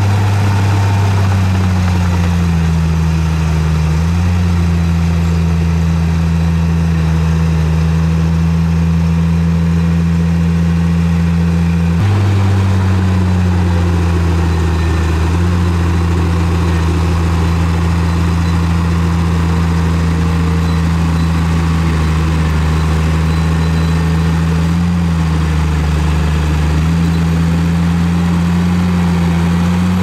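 Diesel engine of heavy earthmoving machinery running steadily, its pitch sagging briefly and recovering a few times as the load changes, with an abrupt change about twelve seconds in.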